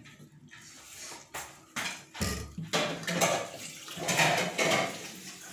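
Steel dishes and a steel serving spoon clinking and knocking as rice is dished onto a metal plate: scattered knocks at first, then a busier stretch of scraping and wet mixing of rice by hand.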